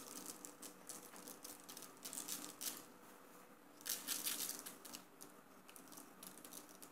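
Faint light rustling and pattering as seeds are sprinkled by hand over egg-washed dough rounds on a parchment-lined baking tray. The sound comes in small irregular clusters, over a faint steady hum.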